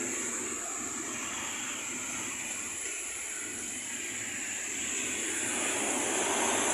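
Road traffic: a steady wash of passing vehicles, growing louder near the end as one comes closer.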